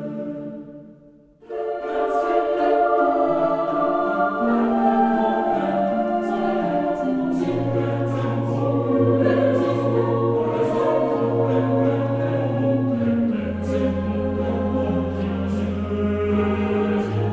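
Background music with choir-like voices over sustained low bass notes. One passage fades out at the start and a new one begins about a second and a half in.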